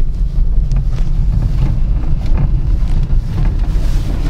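Cabin noise of a Honda Mobilio Spike on the move: a steady low rumble with irregular short knocks from behind the dashboard. The owner places the knock somewhere around the steering wheel.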